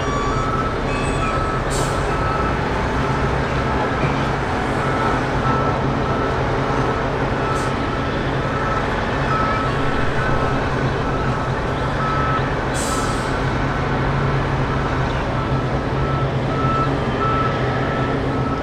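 Steady loud engine rumble with a high beep repeating about once a second, like a vehicle's reversing alarm.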